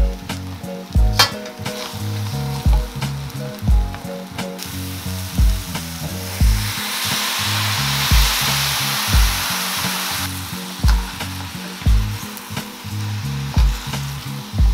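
Egg noodles and lobster pieces stir-fried in a hot stainless steel pan and tossed with wooden spoons. About halfway through a quarter cup of water goes in, the sizzle swells to a loud hiss for a few seconds, then settles back. Background music with a steady beat throughout.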